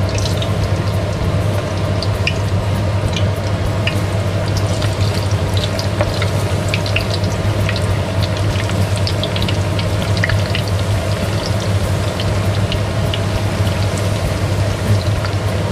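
Eggplant slices sizzling and crackling in hot cooking oil in a pan as more slices are added, with a steady low hum underneath.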